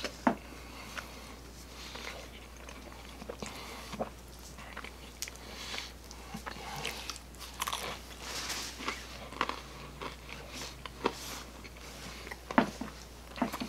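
Close-miked eating of a pizza slice: crunchy bites and tearing of the crust, with chewing in between and a few sharp, louder crunches at irregular moments. A low steady hum sits under it.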